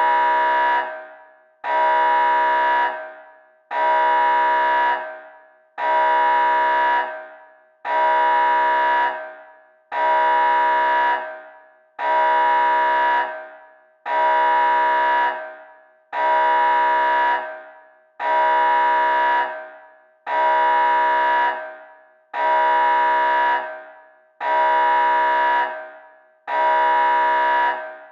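Nuclear alarm: an alarm horn sounding a steady, unchanging tone in repeated blasts about every two seconds, each held about a second and then fading away.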